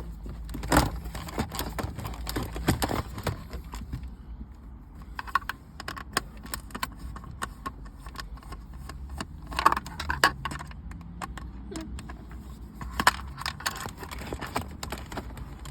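Irregular light clicks, taps and rattles of small screws, a screwdriver and plastic trim being handled as the screws around a car's electric handbrake switch module are undone.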